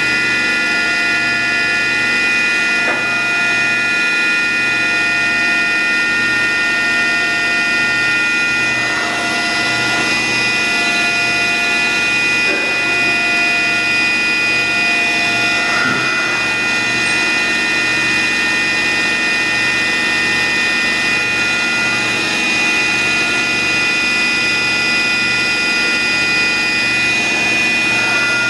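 2004 Fadal VMC6030 HT CNC vertical milling center running: a steady whine made of several high tones over a low hum that pulses about once a second, with a few brief sliding tones in the middle.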